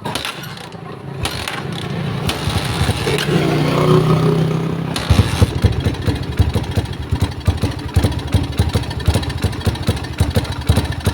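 Rusi Raider-type 150 cc motorcycle's single-cylinder engine catching and revving up and down, then settling about five seconds in into a rough, lumpy idle of separate firing beats. The mechanic likens the running to a panting horse and suspects the carburetor needs cleaning, and perhaps the spark plug.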